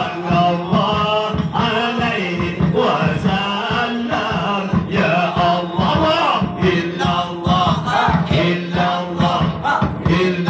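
Sholawat chanted by a group of men a capella, over a steady low held note, while one man makes drum beats with his mouth into a microphone, a quick, steady rhythm under the singing.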